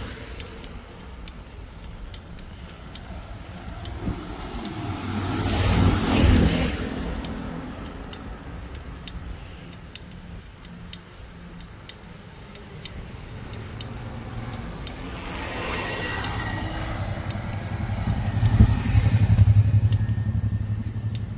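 Motor vehicles passing close by twice, each a few seconds of engine noise swelling and fading, the first about six seconds in and the second near the end, over a steady low engine hum.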